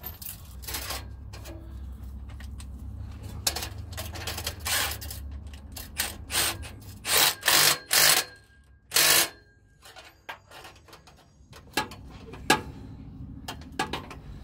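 Hand and power tools at work fitting exhaust headers and a Y-pipe: irregular clicks and metal knocks, with several short loud tool bursts between about six and nine seconds in.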